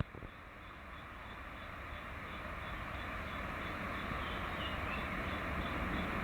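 Boeing 777 jet engines on landing approach, a steady rushing roar that grows louder as the airliner comes closer. A sharp click comes right at the start.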